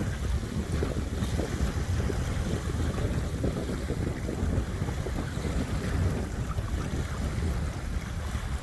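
Small waves washing on a beach shore, with wind gusting on the microphone as a steady low rumble.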